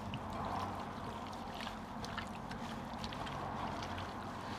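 Raw chicken cubes being mixed in a bowl with lemon juice and ginger-garlic paste: soft, wet squelching with small irregular clicks, over a low steady hum.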